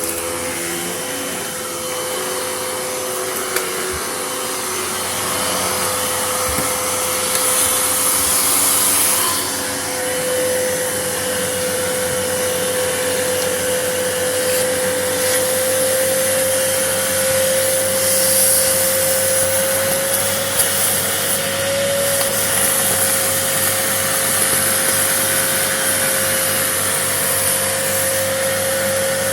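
Vacuum cleaner running steadily as it picks up dust and grit, its motor whine holding near one pitch under a constant rushing hiss, with a few sharp ticks along the way.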